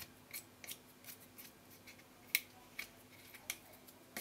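Light, irregular clicks and taps of fingers handling the plastic fan end of a 1.5 kW CNC spindle, about a dozen, with the sharpest one about two and a half seconds in, over a faint steady hum.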